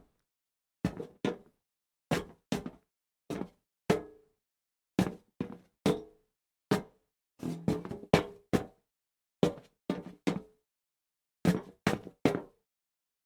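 Feet shuffling and stepping on a metal plank: short scuffs and clanks, singly or in quick groups of two or three, with pauses between. Each step leaves a brief metallic ring.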